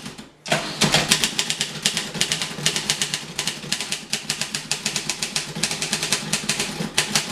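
Fast typing on a 1950 Voss ST24 portable typewriter: a rapid, uneven stream of key strikes, several a second, with one brief pause just after the start.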